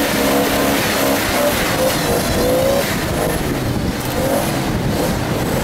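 Off-road 4x4's engine revving under load while driving a rough dirt trail, its pitch rising and falling over a steady, loud rush of noise.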